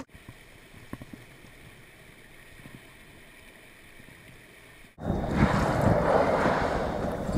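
Faint hiss with a few light ticks for about five seconds, then a sudden switch to loud wind buffeting the microphone over water aboard a boat.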